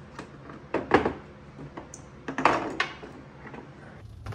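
E-bike battery pack being handled on a workbench: a sharp knock with some clatter about a second in, then a scraping clatter around two and a half seconds in.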